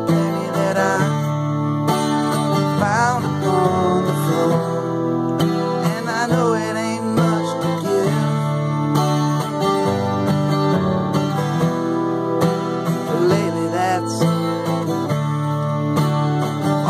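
Acoustic guitar strummed steadily in chords, with a man's voice singing over it at several points.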